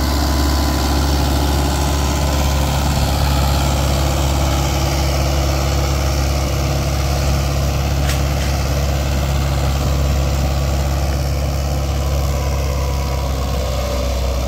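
Mahindra 575 XP Plus tractor's four-cylinder diesel engine running steadily under load while it pulls a tine cultivator. The engine is warmed to working temperature and its note is hard. A faint click comes about halfway through.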